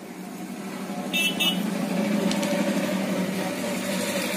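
A steady low mechanical hum that grows louder about a second in, with two short clicks close together shortly after.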